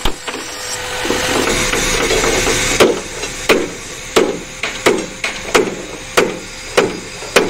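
Hammer blows on a steel truck chassis rail, about one and a half strikes a second, each with a short metallic ring, as the bent rail is straightened. A steady noise fills the first few seconds before the blows begin.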